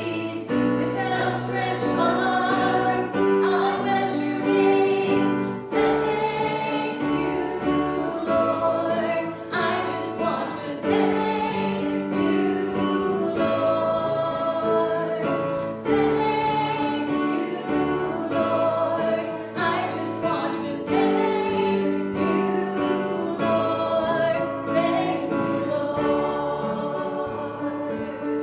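Gospel hymn sung by a group of voices with instrumental accompaniment, sustained and continuous.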